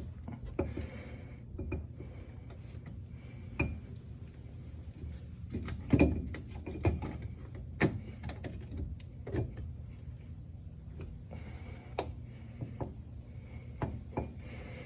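Irregular metal knocks and clinks of differential parts (spool carrier, bearing races and shims) being handled and worked into the axle housing by hand. The loudest knocks come about 6 and 8 seconds in, over a steady low hum.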